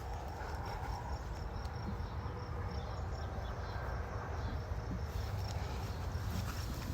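An insect, likely a cricket, chirping in a steady rhythm of short, high pulses several times a second, fading out about five seconds in, over a constant low rumble.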